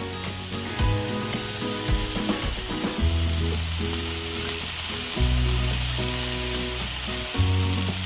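Food sizzling steadily in a hot frying pan, with background music playing over it.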